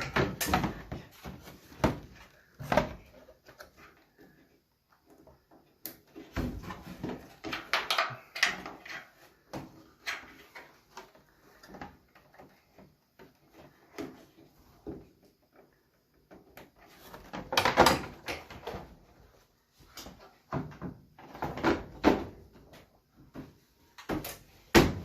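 Irregular knocks, clunks and scrapes from hands working on a Samsung clothes dryer's sheet-metal cabinet and parts, in bursts with short pauses between them.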